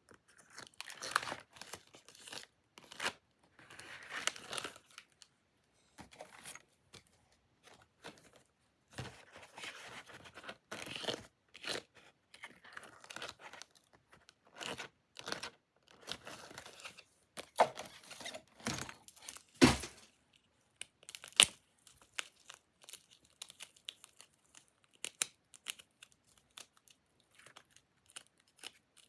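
Desk work with paper and sticker sheets: irregular peeling, rustling and crinkling, broken by a few sharper taps, the loudest about 20 seconds in.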